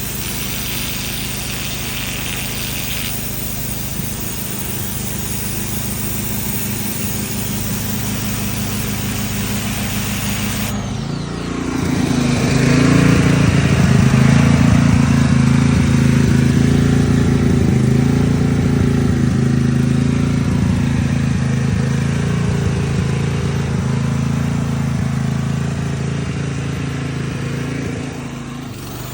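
A portable generator runs steadily throughout. About a third of the way in, the Ryobi 1600 psi electric pressure washer's motor and pump start up and run much louder, then shut off near the end.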